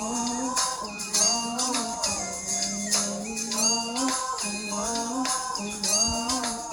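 Live pop band music with a steady beat and a melody line moving over it.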